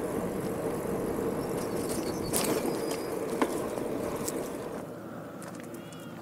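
Steady outdoor background noise that drops away about five seconds in, with a few sharp clicks in the middle and a short chirp near the end.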